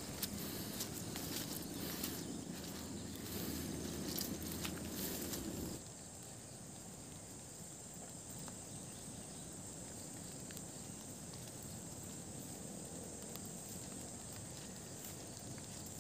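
Footsteps and rustling on a muddy, slippery forest trail, with scattered sharp clicks, for about six seconds. Then the sound drops abruptly to a steady, quieter outdoor hiss with a constant high insect drone.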